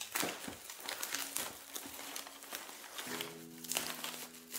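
Plastic bubble wrap crinkling and crackling as hands pull it off a glass object, a dense run of small crackles throughout.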